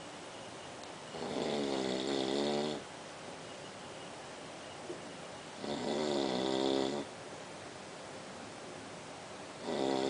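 Snoring: three long snores about four seconds apart, the third starting near the end.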